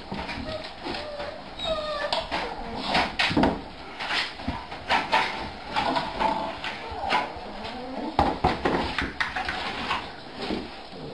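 Steel dog food bowls clattering, set down one after another on a wooden floor, with dogs giving short high whines among them.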